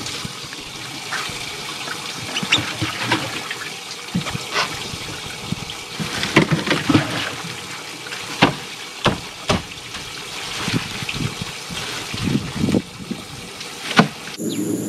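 Water trickling and sloshing in a bass boat's livewell, with a string of sharp knocks and clunks as the angler handles the freshly caught fish. Just before the end the sound switches to a steady hum.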